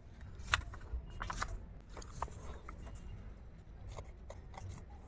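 Scissors snipping through thin orange craft paper in a series of short, uneven cuts, with paper rustling as the sheet is handled.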